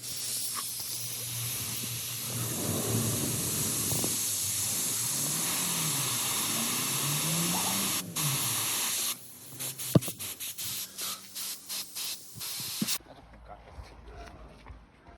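Pressurized air hissing steadily for about eight seconds, then coming in a run of short bursts that stop about thirteen seconds in.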